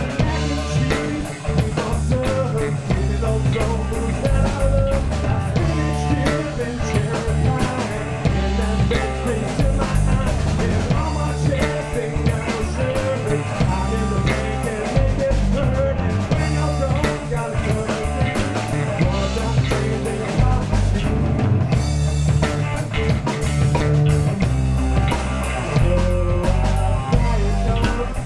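Live rock band playing an instrumental passage with no singing: drum kit to the fore, with bass and guitar.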